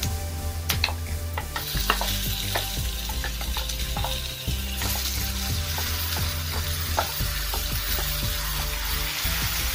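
Onions and green chillies frying in hot oil, sizzling, while ground masala paste is scraped out of a steel container into the pan, with many sharp clicks and taps. The sizzle gets louder and brighter about a second and a half in.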